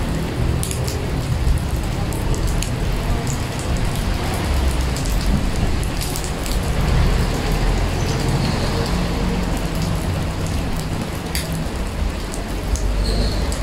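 Steady rain falling into a puddle on pavement: a continuous hiss with many single drops splashing sharply throughout, over a low rumble.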